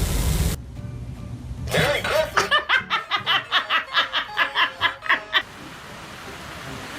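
Laughter in a rapid run of rhythmic pulses, about three to four a second, starting nearly two seconds in and cutting off a little past five seconds. It is preceded by a louder rushing noise that stops abruptly about half a second in.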